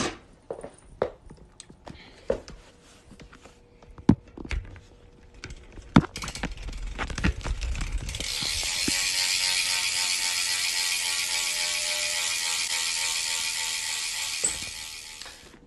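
BMX rear cassette hub (Shadow Symbol) freewheeling as the back wheel is spun: its pawls ratchet in a fast, even buzz that builds up about six seconds in, holds steady and dies away near the end. Before it come a few sharp clicks and knocks.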